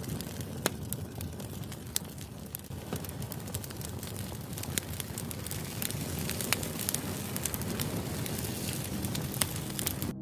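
Firewood burning: a steady low rumble of the fire with frequent, irregular sharp crackles and pops from the logs.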